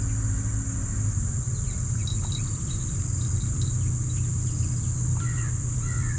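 Outdoor ambience: a steady high insect drone of crickets or cicadas over a low steady rumble, with a few faint clicks and some short chirps near the end.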